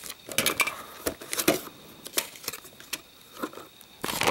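Pistol magazines in plastic blister packs being handled: irregular crinkling of the plastic with light clicks and taps, the loudest just before the end.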